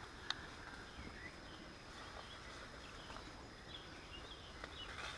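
Faint birds chirping over quiet outdoor background noise, with one sharp click right at the start.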